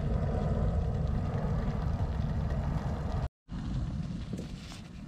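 Water at a rolling boil in a metal pot over a wood fire, a steady bubbling rush. It cuts off suddenly about three seconds in, giving way to quieter outdoor sound with light rustling of a cloth pouch.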